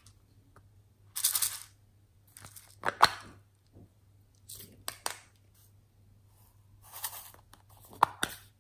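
Small plastic containers being handled: sharp plastic clicks of lids snapping open or shut, three of them loud, between brief rustling bursts of sequins and glitter being shaken out.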